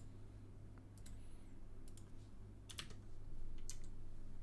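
Computer keyboard keys and mouse clicks, a few sharp scattered clicks over a faint low hum.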